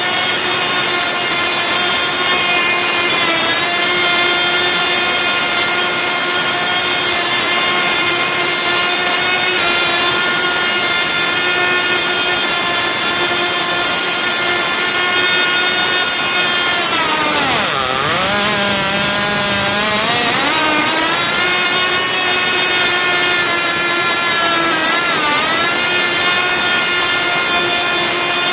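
Twin-cylinder Cox model two-stroke glow engine running at high speed with a steady high-pitched buzz. About two-thirds of the way through, its speed sags sharply and recovers within about three seconds, and a smaller brief dip follows near the end.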